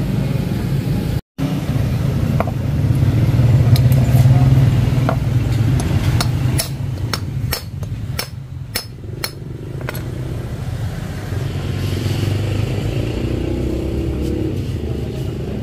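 A vehicle engine running steadily, with a run of sharp metallic taps in the middle.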